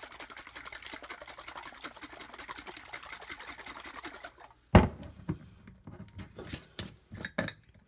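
A glass mason jar of avocado dressing shaken hard by hand, the liquid sloshing rapidly for about four and a half seconds. Then one loud knock and a few clicks as the metal screw lid is worked loose.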